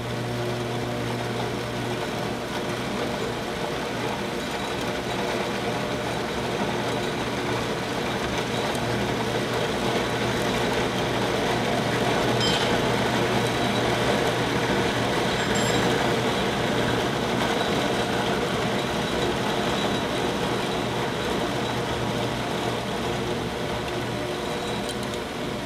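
Horizontal metal-cutting bandsaw running, its electric motor humming steadily while the blade cuts through a round metal tube. The cutting noise grows a little louder toward the middle and eases near the end.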